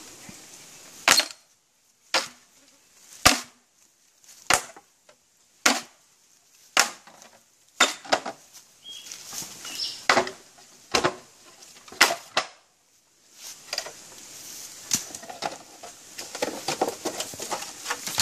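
Green bamboo pole being split by hand: about a dozen sharp woody knocks, roughly one a second, as it is struck, then a longer crackling and splintering near the end as the split runs along the pole.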